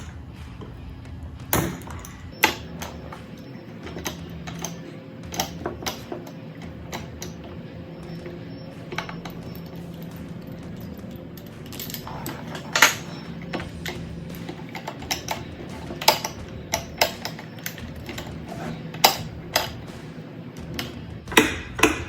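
Hand tools clicking and knocking against the chainsaw's metal parts at irregular intervals as the carburetor bolts are worked loose, over a faint steady hum.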